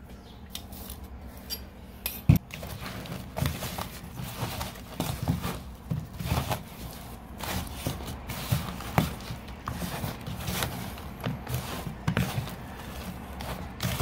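Hands rubbing spice mix into raw chicken thighs and legs in a plastic bowl: irregular soft clicks, knocks and scrapes of the bowl and a utensil, with one sharp knock about two seconds in.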